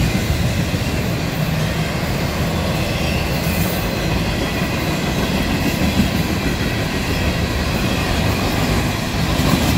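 Freight cars of a CSX train, Tropicana juice boxcars, rolling past close by: a steady rumble of steel wheels on the rails.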